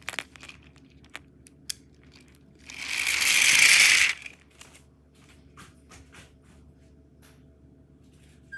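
Light plastic clicks as a toy Thomas engine is handled and set going, then a loud whirring rush lasting about a second and a half as the motorised engine and its plastic trucks run close past, cutting off suddenly. A few faint clicks follow.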